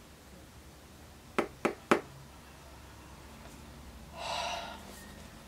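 Three sharp clicks about a quarter second apart, about a second and a half in, from handling the eyeshadow palette and its packaging. A short breathy gasp follows near the end.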